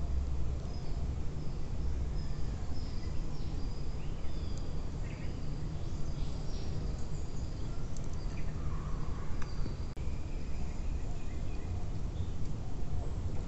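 Low rumble of wind and handling noise on a handheld microphone, with short, high bird chirps and calls scattered throughout.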